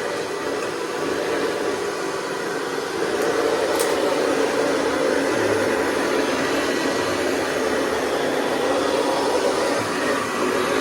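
Hoover Convertible 704 upright vacuum running steadily with a low purr. It grows a little louder about three seconds in.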